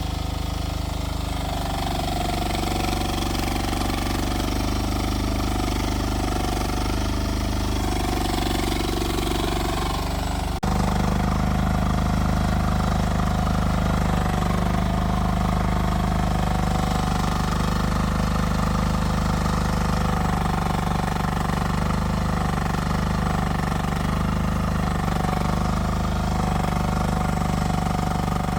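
Rippa R10 mini excavator's engine running steadily while working. About ten seconds in the sound changes abruptly with a click, and afterwards the engine is louder and lower in pitch.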